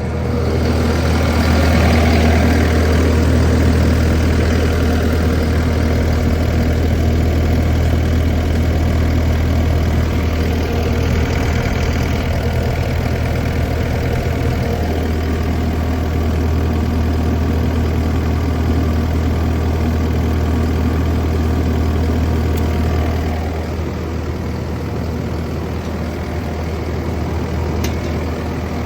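Kubota diesel engine of a Takeuchi TL12 tracked compact loader running steadily at working speed. It picks up in the first couple of seconds and eases off somewhat about three-quarters of the way through.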